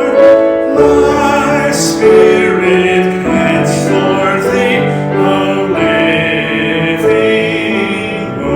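A slow hymn sung by voices with keyboard accompaniment, in long held notes that change every second or so.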